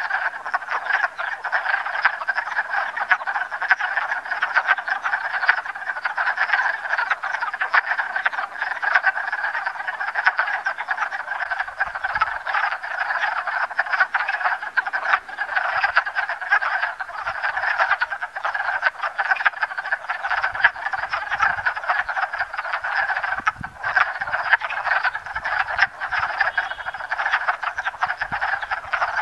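A breeding chorus of many male wood frogs chattering together in a spring pond: a dense, unbroken stream of short overlapping calls.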